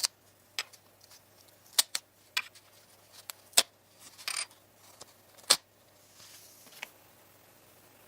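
Small tools and parts being handled on a workbench: about eight sharp, irregular clicks and taps, with a short scraping rasp about four seconds in.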